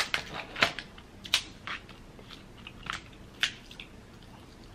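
Snow crab leg shells cracking and snapping apart by hand, close to the microphone, with eating sounds of the crab meat. About half a dozen sharp separate cracks.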